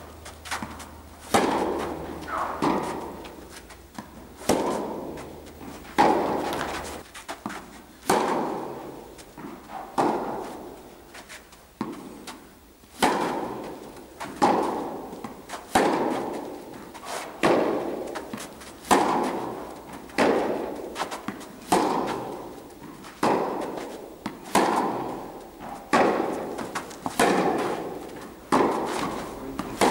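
Tennis balls struck by rackets and bouncing on the court in a baseline rally: sharp pops about once a second, each echoing in an indoor tennis hall.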